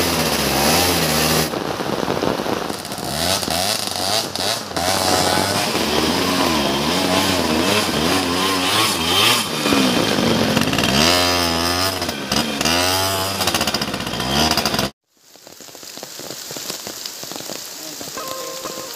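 A dirt bike's engine revving hard, its pitch rising and falling over and over as the loaded bike is pushed up a muddy slope. About fifteen seconds in it cuts off abruptly, leaving a steady hiss of rain.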